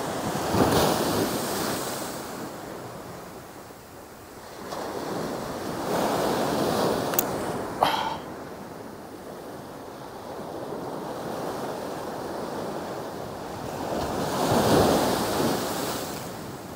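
Small surf breaking and washing up a sandy beach, swelling three times as waves come in, with a couple of sharp clicks a little before the middle.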